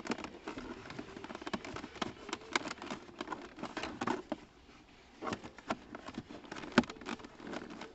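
Plastic shift-boot trim frame being pressed into a VW New Beetle's centre console, with scattered small plastic clicks and leather rustling. Near the end comes one sharp pop as the frame snaps into place.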